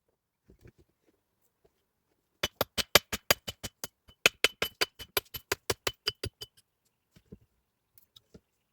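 A fast run of sharp knocks with a slight metallic ring, about six a second, in two bursts with a short break between, then a few faint scattered knocks near the end.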